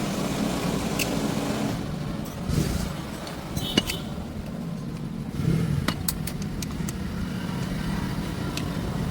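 Metal parts and tools clinking and tapping several times over a steady low engine-like hum, typical of hands-on work on a tractor clutch pressure plate.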